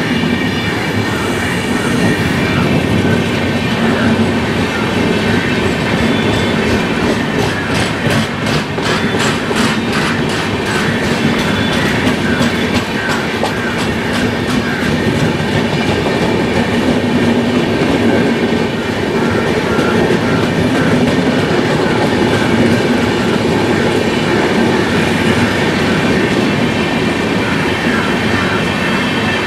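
Coaches of a long express passenger train rolling past at speed: a loud, steady rumble of wheels on rail. A quick run of sharp clicks comes about eight to twelve seconds in as the wheels pass over rail joints.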